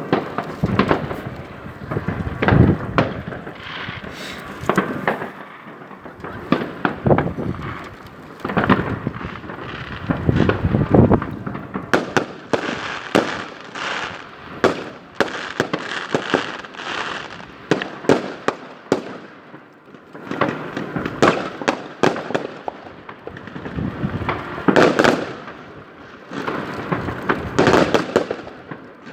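New Year's Eve fireworks going off: many sharp bangs one after another with hardly a pause, louder clusters of blasts about a quarter, a third and six-sevenths of the way through.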